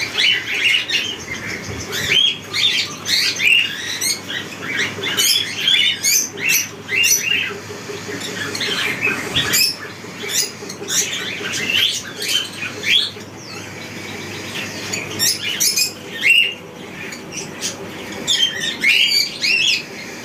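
Many caged pet birds, cockatiels among them, chirping and squawking in quick, overlapping calls throughout, over a faint steady low hum.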